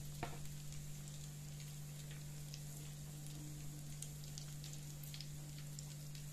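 Donuts frying in vegetable oil on low heat: a soft, steady sizzle with many small scattered pops and crackles, over a steady low hum.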